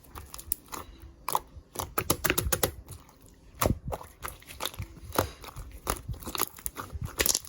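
Slime being squished and pressed by hand, making irregular sticky clicks and crackling pops.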